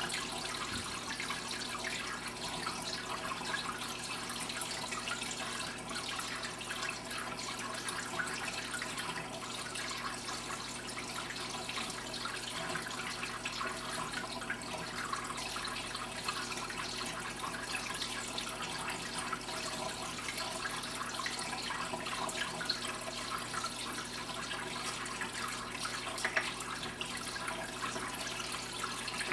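Water in an overflow aquarium running and trickling steadily, a constant splashing with many small droplet sounds, over a faint steady low hum.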